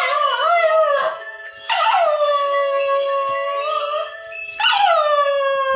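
A pet dog howling along to a phone alarm ringtone. A wavering howl in the first second, then two long howls, each dropping in pitch at the start and then held steady, over the alarm tune.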